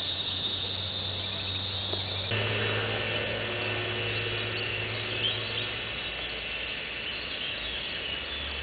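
Outdoor ambience of insects trilling steadily at a high pitch, with a few faint bird chirps. It steps up in level about two seconds in.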